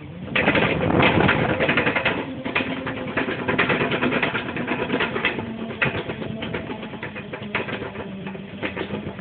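Skateboard wheels rolling along the grooved treads of a moving walkway, a loud continuous rattle full of small clacks that starts about half a second in, over a faint steady hum.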